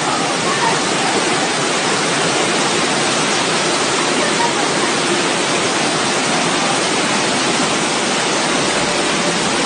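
Loud, steady rushing of a muddy floodwater torrent.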